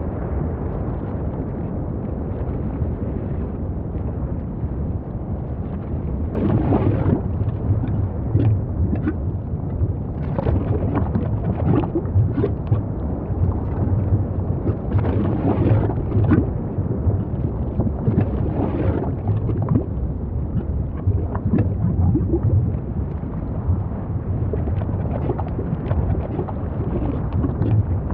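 Volcanic eruption sound effect: a continuous deep rumble that grows louder about six seconds in, then surges again and again with short bursts of crackling.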